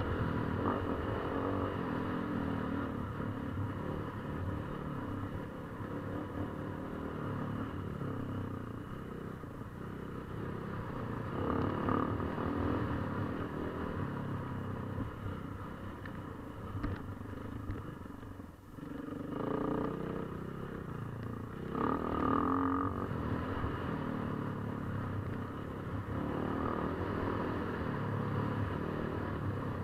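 KTM 450 EXC's single-cylinder four-stroke enduro engine running under constantly changing throttle off-road. There are several hard bursts of throttle, a brief lift-off about two-thirds of the way through, and a few sharp clicks.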